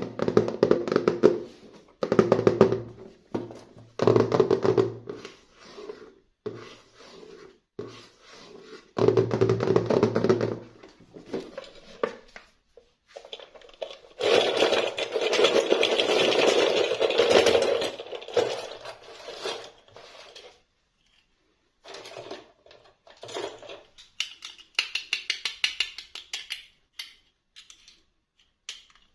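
Toy packaging being handled and opened by hand: repeated bursts of rustling and scraping, a longer stretch of crinkling in the middle, then a run of small clicks near the end.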